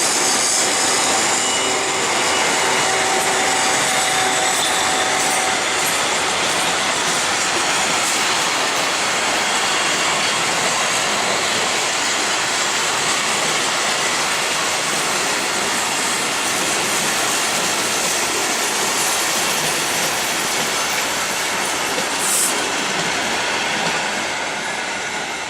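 Train running on the rails: a loud, steady rolling noise of wheels on track, with faint squealing tones in the first few seconds. A brief high-pitched squeal about 22 seconds in, and the noise eases slightly near the end.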